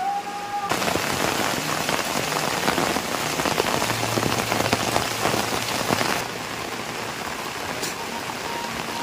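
Rain falling in a dense, even hiss of many close drops. It starts abruptly about a second in and drops to a softer, duller rain about six seconds in.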